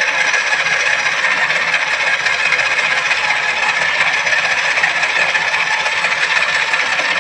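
Electric drill driving a hone inside a cylinder liner of a Massey Ferguson 385 engine block: a steady rattling, scraping grind of the abrasive against the bore as the liner is polished.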